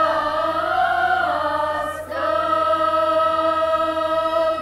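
School choir of young voices singing in harmony, the pitch swelling about a second in, a brief break near two seconds, then a long final chord held and released near the end as the piece closes.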